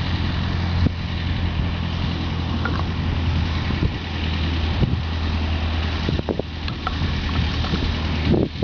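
Light plane's piston engine and propeller running at a low, steady idle during the roll-out after landing, a constant low drone.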